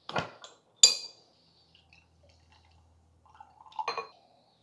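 A green swing-top glass bottle of fizzy kombucha is opened under a towel, with a short burst and then a sharp glassy clink about a second in. Near the end the kombucha is poured through a small metal strainer into a glass, ending in a clink.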